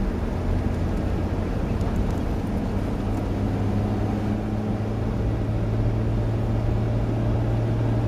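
4x4 off-road vehicle engine running while driving over sand, a steady low drone that grows stronger about halfway through.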